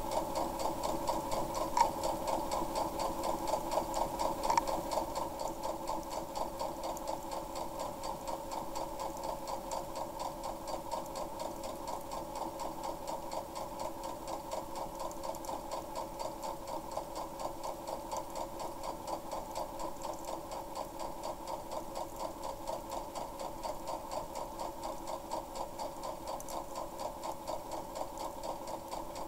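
Compact white domestic electric sewing machine running steadily, the needle going up and down in a fast, even rhythm as it stitches a seam through fabric. It runs a little louder for the first few seconds, with a couple of light clicks.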